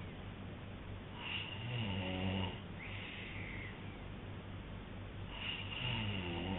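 A man snoring in his sleep: two snores about four seconds apart, each followed by a hissing out-breath.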